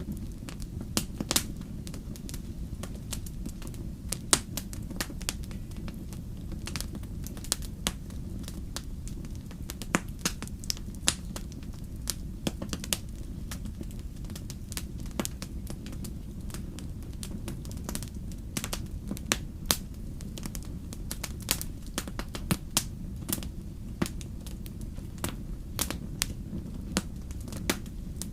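Wood campfire crackling, with irregular sharp pops and snaps, some louder than others, over a steady low rumble.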